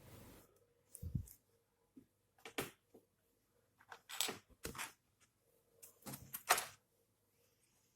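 Scattered light clicks and taps, about six in all at irregular intervals, from small tools and parts being handled as a desoldered rotary encoder is worked free of its circuit board.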